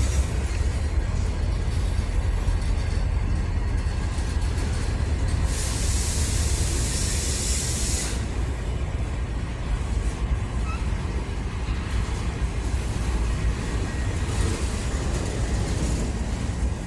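Freight train cars rolling past on the rails, a steady low rumble, with a short burst of hiss about five and a half seconds in.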